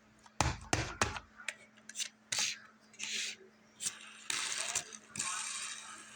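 Fidget board toys being worked by hand: a quick run of clicks and low knocks, then several scratchy rubbing sounds, the longest near the end, over a faint steady hum.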